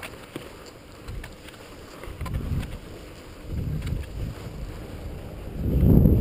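Wind buffeting an action camera's microphone during a fast ski descent, a low rumble that swells in gusts and is loudest near the end.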